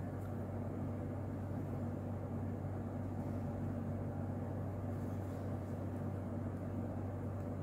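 Steady low hum with an even background hiss, unchanging throughout; no distinct handling sounds stand out.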